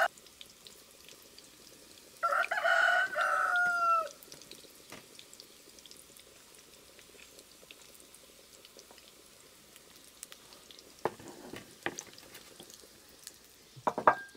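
A rooster crows once about two seconds in, a call of nearly two seconds that drops in pitch at the end. Faint frying sizzle runs underneath, and there are a few short knocks near the end.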